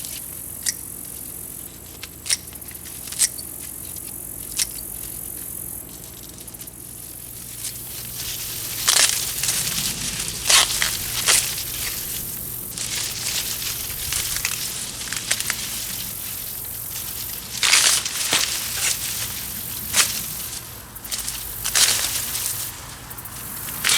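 Corn plants being harvested: a few sharp snaps at first, then from about eight seconds in loud rustling and crackling of stalks and leaves, with repeated sharp snaps as ears are broken off and stalks cut down.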